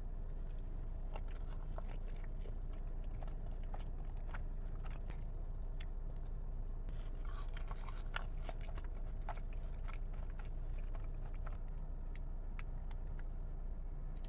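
A person chewing and biting food close to the microphone: wet chewing with scattered crisp crunches and mouth clicks, thickest about seven to nine seconds in, over a steady low hum.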